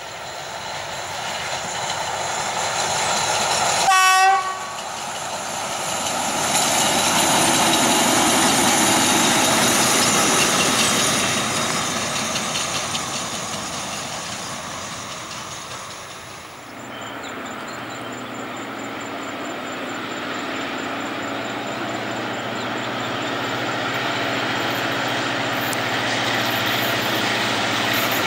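Diesel-electric locomotive running light gives a short horn blast about four seconds in, then passes close with its engine and wheels loud before fading away. After a sudden change, another diesel locomotive's engine runs steadily and grows louder as an express train approaches.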